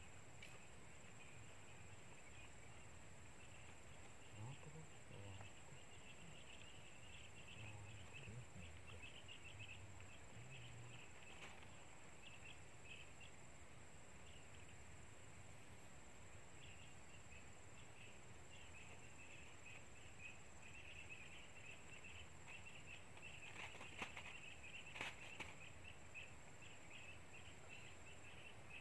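Faint insects chirring in the waterside vegetation, a fine high trill that swells and fades, over a quiet outdoor hush with a thin steady high whine. A few faint clicks come near the end.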